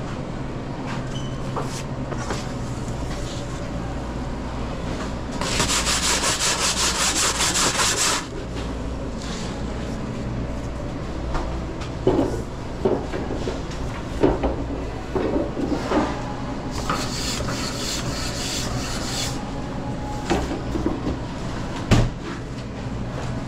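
Pizza-making work over a steady low hum of kitchen equipment. There are two spells of scraping or rubbing, a few seconds each, the first loud and rapidly pulsing, with scattered knocks and clatters between them and another knock near the end.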